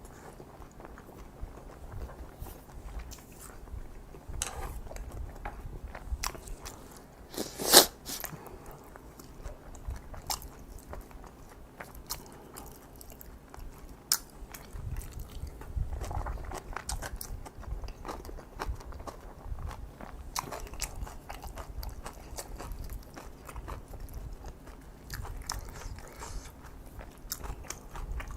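Close-miked eating sounds: chewing kimchi fried rice and crunchy kimchi, with many small wet mouth clicks and crackles throughout. One sharp, much louder click comes about eight seconds in.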